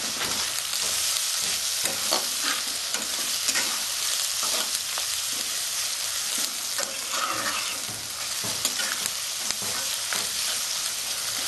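Sliced onions, garlic and green chillies sizzling in a little oil in a kadai, stirred with a steel spatula that scrapes and clinks against the pan now and then.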